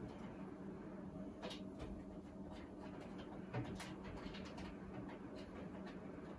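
Scattered light clicks and small knocks from cables and plugs being handled and pulled loose, with one slightly heavier knock about halfway through, over a steady low hum.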